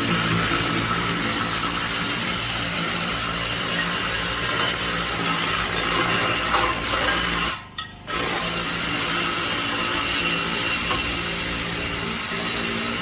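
Hot-water pressure washer running and spraying: a steady machine hum under a loud hiss of water spray. It cuts out briefly once, a little under eight seconds in, then carries on.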